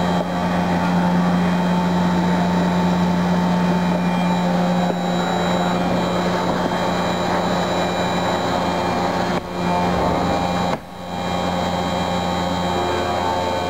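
Haas CNC vertical mill cutting a metal block with an end mill under flood coolant: steady spindle and cutting noise with a low hum and a faint high whine. The noise dips briefly twice, about nine and a half and eleven seconds in.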